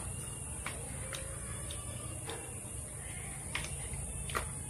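A man eating soaked rice by hand: quiet chewing and mouth smacks, with about five short, sharp clicks spread through. A steady low hum and a thin high hiss run underneath.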